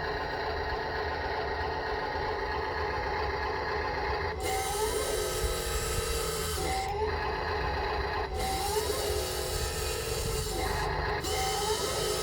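Small electric motors and plastic gearboxes of a 1:14 scale RC bulldozer whirring over a steady mechanical hum. From about four seconds in, the whir starts and stops every two seconds or so, each start with a short rising whine.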